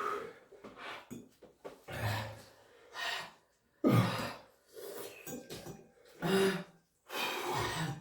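Heavy breathing and gasps, a series of sharp breaths about a second apart, some with a short voiced groan: a person panting through a mouth burning from extremely spicy ramen.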